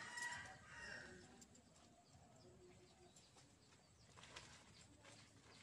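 Near silence with faint bird calls in the background.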